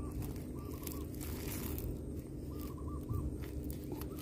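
A bird calling in the background: short notes on one pitch, given in small groups of two to four, a few times over.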